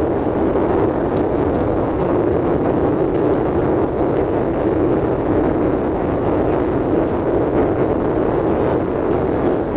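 Steady road and engine noise of a car driving, heard inside its cabin.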